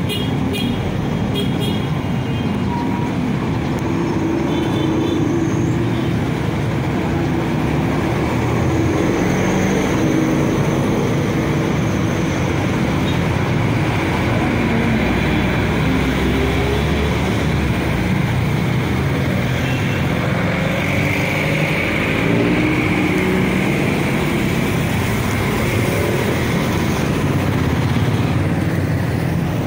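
Steady street traffic noise: motorcycle and car engines running and passing, with people's voices in the background.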